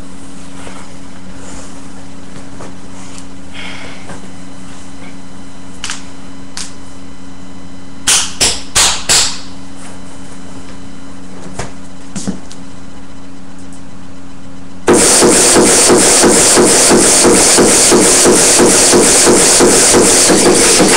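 Steady room hum with a few light knocks, and four loud thumps in quick succession about eight seconds in. About fifteen seconds in, a loud, distorted beat-heavy music track starts suddenly with a steady, fast pulse: the dance track being played for a krump session.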